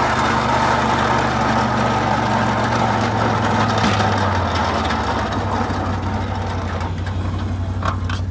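Honda Rancher ATV engine running steadily as it pushes a front-mounted snow plow; its note shifts slightly about halfway through.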